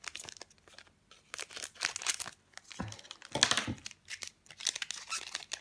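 Foil booster-pack wrapper of Pokémon trading cards crinkling and being torn open, in several short rustling bursts.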